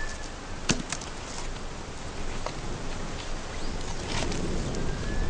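Open wood fire of a clay pottery firing, crackling with a few scattered sharp pops over a steady hiss and rustle.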